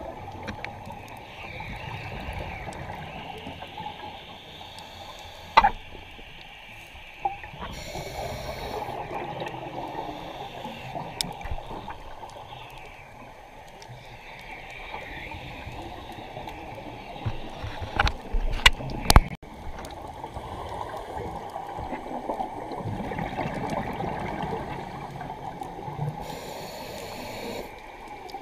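Underwater sound of a scuba dive: the diver's regulator breathing, with exhaled bubbles gurgling and hissing in bursts. A few sharp clicks or knocks come about two-thirds of the way through.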